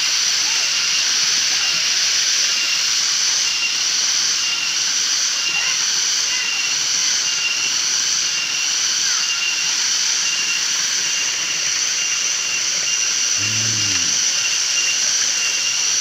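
Steady rush of a shallow mountain stream running over rocks, with a high shrill layer on top and a faint short tone repeating about twice a second. A brief low voice-like sound near the end.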